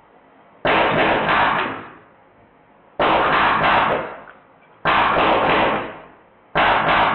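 Drozd Blackbird BB gun, powered by compressed air, firing in short full-auto bursts: four bursts of several rapid shots each, about two seconds apart.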